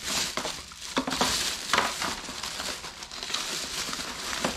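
Plastic bags and packaging crinkling and rustling as items are handled, with a few sharp knocks.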